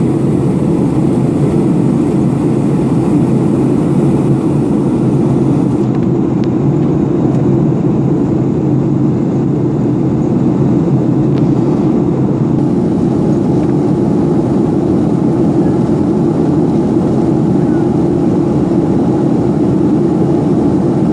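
Steady cabin noise of an airliner climbing after takeoff: engine and rushing-air noise heard from inside the cabin, low and unbroken.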